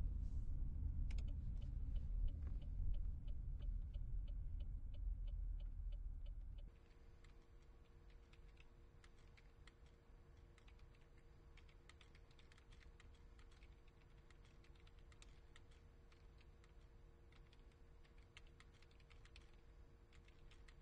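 Deep low rumble, as inside a moving car, with a steady ticking about three times a second, cutting off suddenly about seven seconds in. Then a quiet office sound: a steady hum with irregular computer-keyboard typing clicks.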